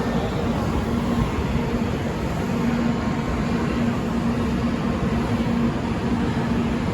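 Steady railway-station background noise: an even rumble with a faint low hum, no distinct event.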